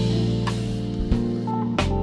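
Background music: sustained instrumental chords with a drum beat.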